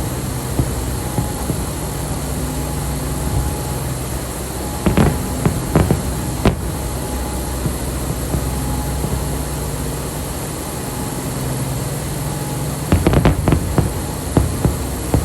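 Fireworks going off: a cluster of sharp bangs about five seconds in and another near the end, with a few single pops between, over a steady low rumble.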